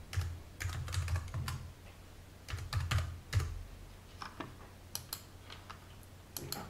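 Typing on a computer keyboard: a quick run of keystrokes, a second short run about two and a half seconds in, then a few scattered single clicks.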